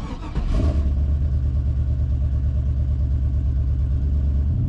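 A 5.3-litre V8 truck engine starting about half a second in and settling into a steady idle, just after its intake manifold has been re-torqued to spec to cure a vacuum leak and misfire.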